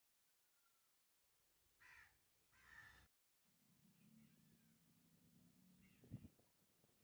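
Near silence with faint handling of rusty gun parts: two short scrapes of metal on the concrete, then a single knock about six seconds in. A faint animal call sounds in the background in the middle.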